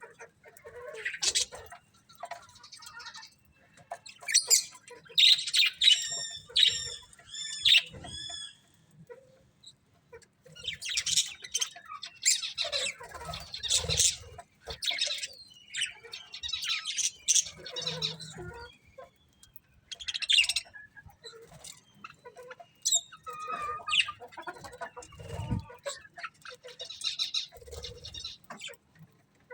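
Pet budgerigars chirping and chattering in irregular bursts of high, warbling notes. About five seconds in, one bird repeats a short arched whistle several times.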